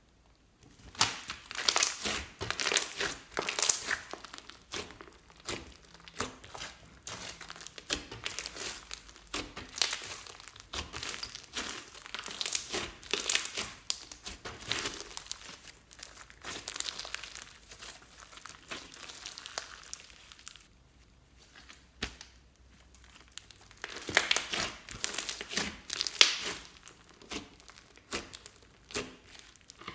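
Hands kneading and pressing a large mass of glossy slime mixed with small foam beads, giving a dense, sticky crackling. It starts about a second in and eases off for a few seconds about two-thirds of the way through before picking up again.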